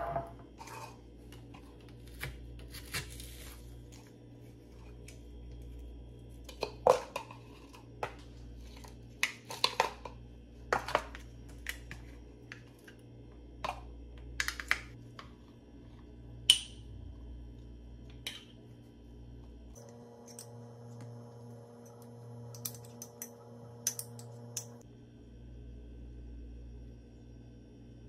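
Scattered clicks and light clinks of tableware and food being handled while eating, a few sharper taps standing out, over a steady low hum.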